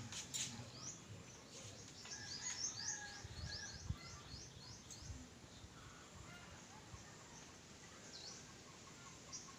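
Birds chirping in a quick run of short, high, falling notes, strongest about two to four seconds in, over faint background noise with a few light knocks.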